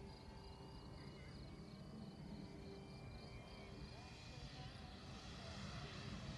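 Distant propeller engine of a Piper light aircraft approaching, faint at first and growing louder over the last second or so. Faint chirping sounds in the background.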